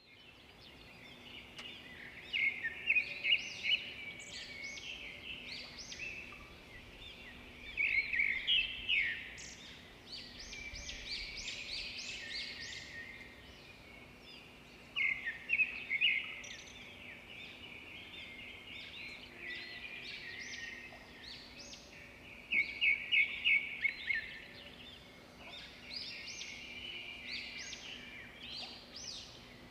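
Songbirds singing: bursts of rapid, high chirping notes that recur every few seconds, over a faint steady background.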